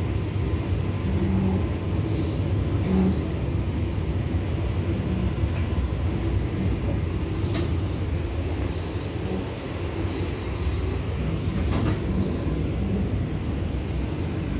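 EP2D electric train running along the line, heard from inside the carriage: a steady low rumble of wheels on rails, with a few short sharp knocks.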